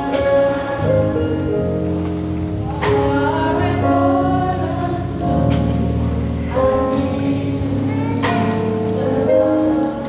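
A choir singing a gospel-style song in sustained, chord-like notes, with three sharp hits spaced through it.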